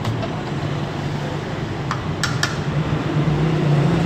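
A steel ladle clinking against metal pots and bowls, a few sharp clinks about halfway through, as curry is ladled out. Under it runs a steady hum of street traffic.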